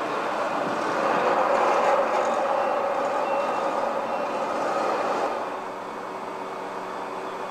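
A steady engine drone with a faint hum in it, louder for about the first five seconds and then settling quieter.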